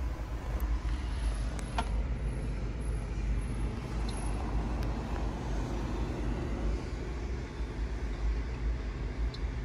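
Steady low rumble of a fire truck's diesel engine idling, heard from inside the cab, with a few faint clicks.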